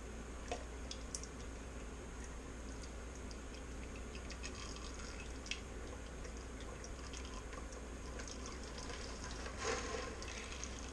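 Used engine oil draining from an opened tractor oil filter housing into a bucket: a faint, steady trickle with a few small clicks and knocks.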